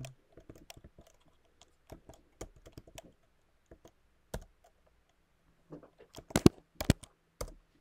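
Typing on a computer keyboard: irregular keystroke clicks, with a few louder strokes about six to seven seconds in.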